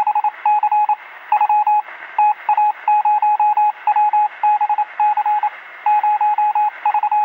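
Electronic beeping: a single steady tone switched on and off in quick short and long pulses in an irregular pattern, like Morse code, with a thin, phone-like sound.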